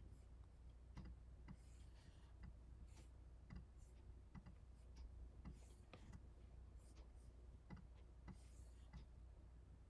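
Near silence: a steady low hum with faint, irregular clicks of a computer mouse, about one or two a second.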